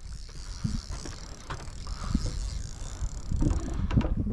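Wind rumbling on the microphone, with a few soft knocks near the end.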